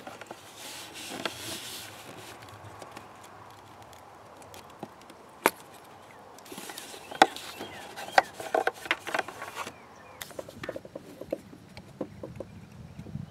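Hands working at a plastic electrical plug connector among hoses and wiring in a car's engine bay: soft rustling, one sharp click about five seconds in, then a quick run of plastic clicks and rubbing, and lighter clicks near the end.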